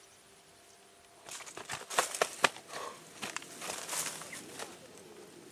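Irregular rustling and crackling clicks that start about a second in and die away near the end, from the landed tilapia being handled at the water's edge among water plants.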